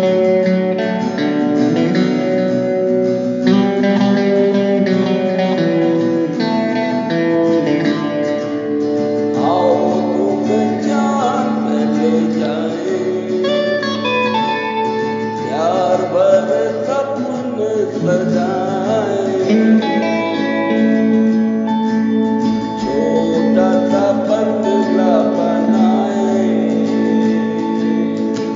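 Acoustic guitar strumming a steady rhythm, with an electric lead guitar and singing in Hindi joining about ten seconds in.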